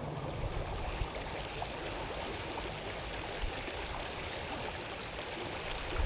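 Small creek's water running steadily, an even rushing sound with no breaks.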